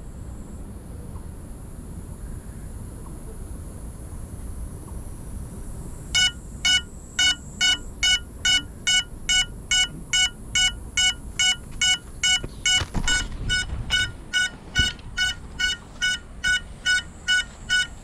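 Crashed FPV quadcopter's lost-model beeper sounding short, high-pitched beeps about twice a second, starting about six seconds in, over a low steady rumble.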